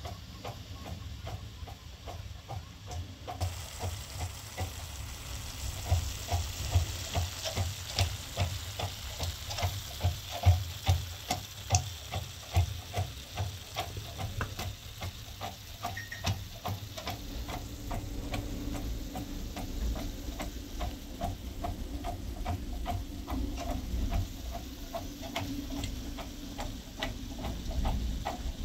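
Wooden pestle pounding in a hand-held vessel, a steady run of rhythmic knocks, about two to three a second. Onions fry in oil in a pan on a gas burner, with a continuous sizzle beneath.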